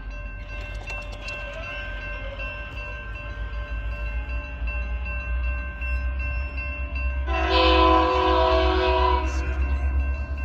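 A train horn sounds one chord blast of about two seconds, beginning about seven seconds in, over a steady low rumble.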